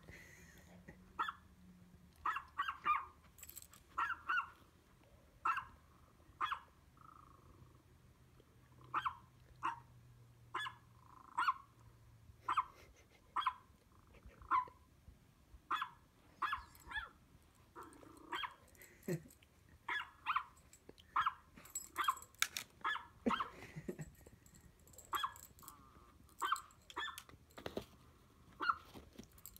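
A small dog's high-pitched barks played through a laptop's speakers, sharp and thin, coming singly or in quick twos and threes about once a second.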